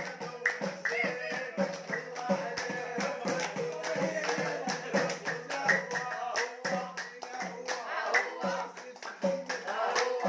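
Music with singing over a quick, steady beat of hand claps and jingling percussion.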